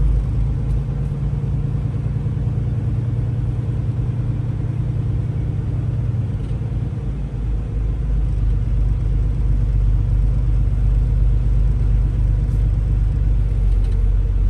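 Diesel semi-truck engine running with a steady low rumble.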